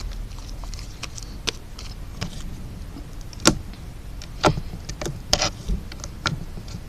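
Sticky glitter-glue slime being kneaded and stretched by hand, giving irregular sharp pops and clicks, the loudest about halfway through, over a steady low outdoor rumble.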